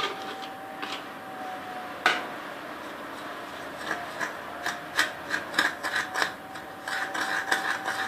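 A spoon scraping and stirring in a bowl, mixing melted chocolate into icing sugar for a chocolate icing. There is a sharp tap about two seconds in, then frequent light taps and scrapes in the second half.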